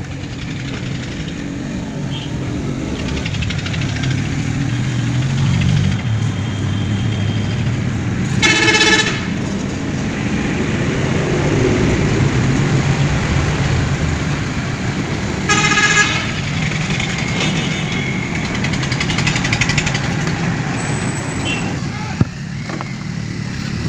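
Steady road-traffic noise with a vehicle horn honking twice, about eight and sixteen seconds in, each honk under a second long.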